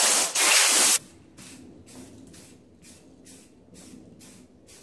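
A compressed-air blow gun hissing loudly in two blasts, blowing dust off an axle housing, then cutting off about a second in. After that an aerosol can of self-etching primer sprays in short, quick puffs, about two a second.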